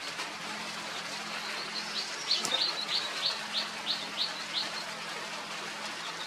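A bird calling a quick run of about nine short, high chirps, roughly three a second, with one sharp click near the start of the run, over a steady low hum and hiss.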